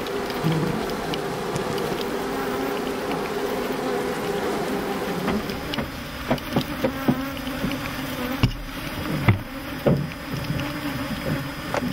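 A mass of honeybees buzzing around opened hives, a dense steady hum: the bees are stirred up by the honey harvest. In the second half, brief louder sounds come now and then over the buzzing.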